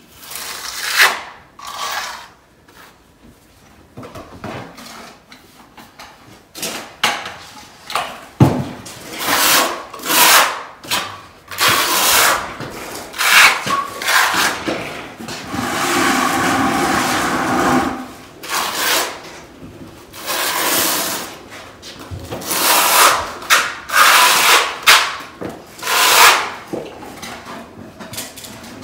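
Notched trowel scraping thinset tile mortar across a concrete floor in repeated strokes, with a longer continuous spread about halfway.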